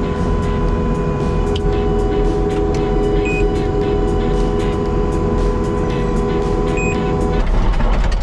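Diesel engine of a Case Minotaur compact dozer loader running steadily under load while it strips and pushes dirt, with background music over it.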